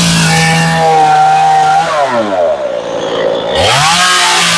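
Stihl MS 193 C two-stroke top-handle chainsaw carving into a wooden post at full throttle. Its note drops to idle about two seconds in, then revs back up to full speed about a second and a half later.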